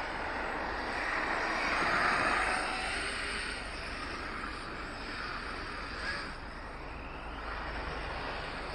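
Radio-controlled trucks driving on a dirt track: a steady rushing noise that swells about two seconds in.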